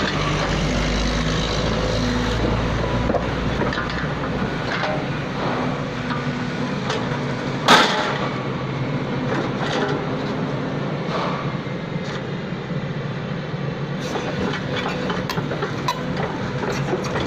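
Excavator engine running steadily while the machine works, with scattered metallic clanks and knocks; one loud clank about eight seconds in.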